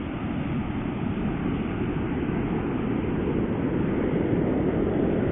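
Ocean surf with wind on the microphone: a steady wash of noise that grows gradually louder toward the end.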